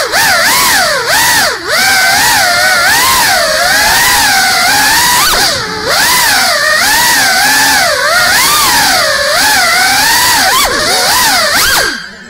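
Brushless motors and ducted propellers of a GEPRC CineLog35 3.5-inch cinewhoop FPV drone whining, heard from the onboard camera. The pitch swings up and down constantly with the throttle, with a few brief drops where the throttle is cut.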